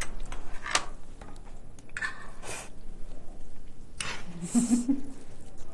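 A spoon clinking and scraping against a dish as curry is mixed into rice, a few separate clicks and scrapes.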